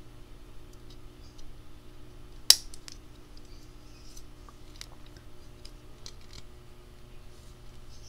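Daicamping DL7 titanium multi-tool being handled: one sharp metallic click about two and a half seconds in, the loudest sound, then several fainter clicks and taps from its folding tools. A faint steady hum runs underneath.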